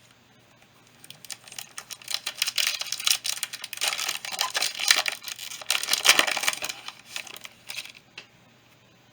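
Foil booster-pack wrapper crinkling and tearing as it is opened by hand: a dense run of crackles that starts about a second in and stops about a second before the end.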